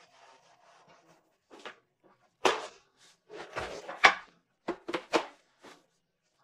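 A faint pouring trickle at first, then a run of sharp knocks and clunks from objects being set down on a desk and a wheeled chair being moved, loudest about two and a half and four seconds in.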